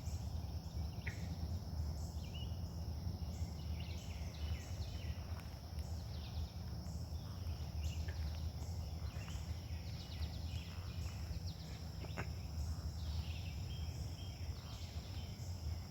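Outdoor chorus of insects, a steady high drone with a pulsing chirp about twice a second, under scattered short calls from an unidentified animal and a steady low rumble.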